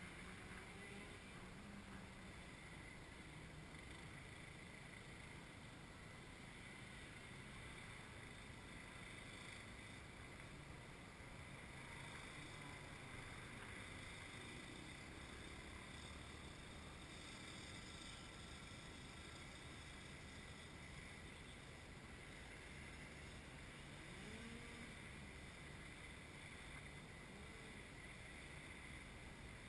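Near silence: faint steady outdoor background noise.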